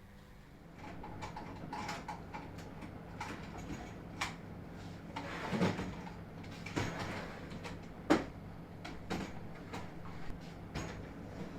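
Scattered knocks and clatter of wooden furniture parts being handled and fitted together, the sharpest about halfway and again about two thirds of the way in, over a low steady hum.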